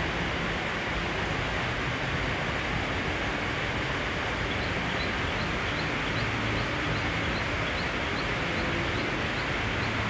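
Steady, even rain hiss. From about halfway through, faint short high chirps repeat about twice a second.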